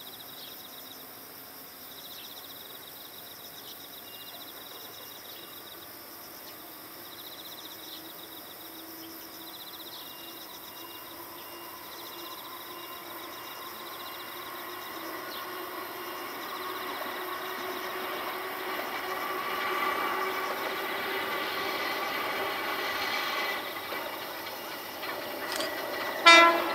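Kotoden retro electric train, cars 120 and 500 coupled, approaching along the track, its running noise growing steadily louder over the second half. A short, loud horn blast sounds about a second before the end, as the train reaches the bridge.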